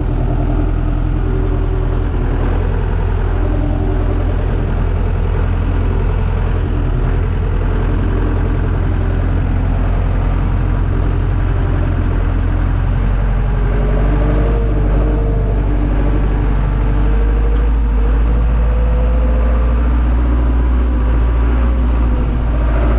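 Renault 651 tractor's diesel engine running steadily at low revs, its note shifting a little about halfway through.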